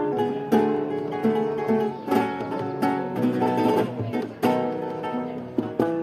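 Spanish guitar played solo: picked melody notes broken by sharp strummed chords every second or two.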